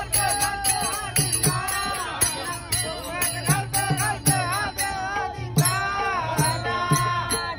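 A group of men singing a Marathi gavlan (devotional bhajan) together, with small brass hand cymbals (taal) struck in a steady, regular beat.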